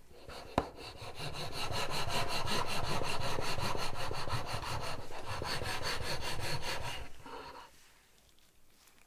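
Wire cake leveler sawing through a baked chocolate sponge cake: a rhythmic dry rasp that builds from about a second in and stops about seven seconds in. A sharp click comes just before the rasp starts.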